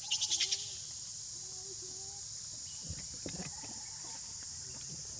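Steady high drone of an insect chorus, crickets or cicadas, with a loud burst of about five rapid chirps right at the start. A few faint short low calls follow in the first couple of seconds, and there are soft knocks about three seconds in.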